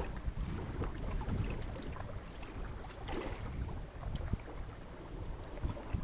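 Gusty wind rumbling on the microphone, over a wash of choppy river water with small irregular splashes.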